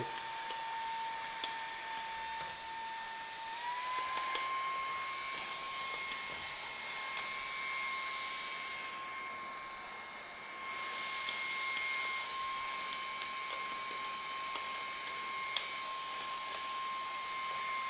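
AGARO Sapphire cordless handheld vacuum cleaner's brushless motor running with the crevice nozzle fitted: a steady high whine over airflow hiss. The whine steps up a little in pitch about three and a half seconds in and then holds.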